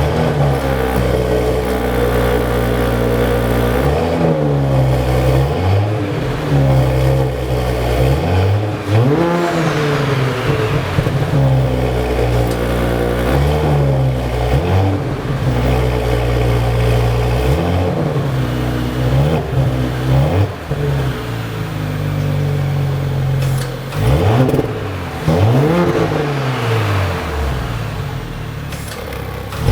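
Turbocharged Audi V6 engine of a 2018 S5/RS5 coupé idling just after start-up, with the throttle blipped about eight times so the engine revs up sharply and falls back to idle each time.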